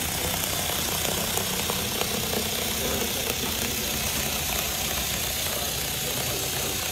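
Handheld electric cardboard cutter running steadily, its small motor buzzing as the blade cuts through cardboard, with a few faint clicks.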